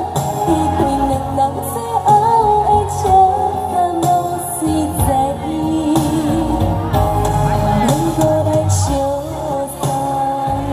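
A woman singing a slow song into a microphone over a recorded backing track, amplified through a PA system.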